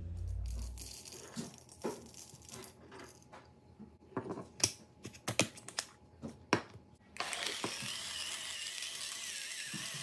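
Sharp clicks and knocks as the STARESSO Discovery II grinder's parts are handled and fitted together. About seven seconds in, its electric motor starts and runs steadily, grinding coffee beans through the stainless steel conical burr.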